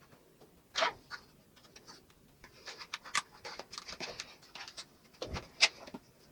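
Light, scattered clicks and rustles of a small flocked toy figure and its fabric clothes being handled, growing busier about halfway through.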